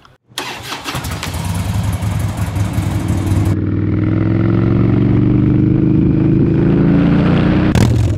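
Motorcycle engine running as the bike rides off, with a hiss of wind noise over it for the first few seconds. Then the engine note rises steadily for about four seconds as it accelerates, and it cuts off suddenly near the end.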